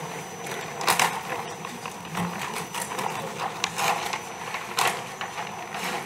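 Scattered, irregular clicks and knocks over a low steady background of room noise in a large chamber.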